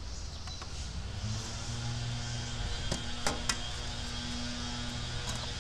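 Robotic pool cleaner's power supply humming steadily once it is plugged into the outdoor outlet and switches itself on; the hum starts a little over a second in. A few sharp clicks from the plug and outlet cover near the middle.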